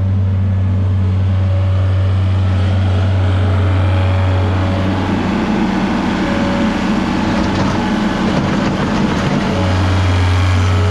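Farm machinery engines running: a tractor engine running steadily while a Case 1838 skid steer loader lifts its bucket and dumps manure into a manure spreader. For about four seconds midway the steady low hum gives way to a rougher, busier engine sound, then comes back near the end.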